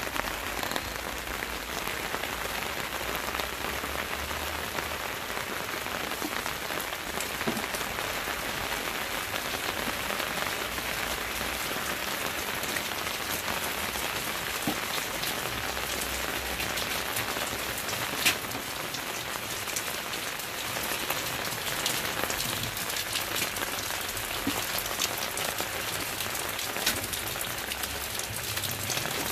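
Steady rain falling on grass, leaves and paving, a constant hiss dotted with fine droplet ticks, with one sharper tick a little past halfway.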